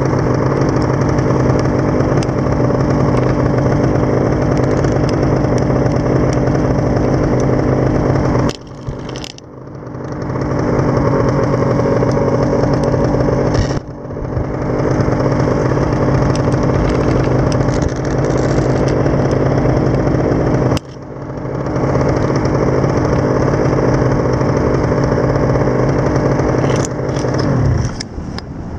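Paramotor engine and propeller running at steady high power. It is throttled back sharply three times and each time brought back up over a second or two. Near the end the pitch glides down as it is throttled back to idle.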